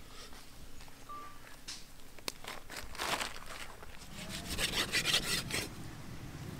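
A large knife sawing through a whole seer fish on a wooden block, in rasping back-and-forth strokes: a few strokes about three seconds in, then a faster run near five seconds.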